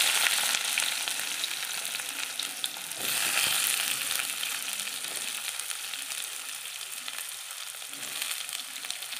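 Sliced onions sizzling in hot oil with mustard and fennel seeds in a kadai. The hiss is loud at first and fades, swells again about three seconds in, then slowly dies down as the onions settle into frying.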